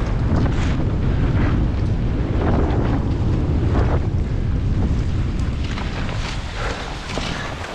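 Wind buffeting the microphone of a camera carried by a moving cross-country skier, with skis scraping over the snow and poles planting roughly once a second. The wind rumble eases a little near the end.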